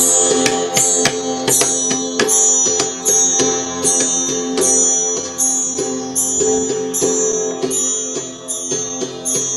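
Kalimba being played: a steady run of plucked metal tines, each note ringing on and overlapping the next, at about two or three notes a second.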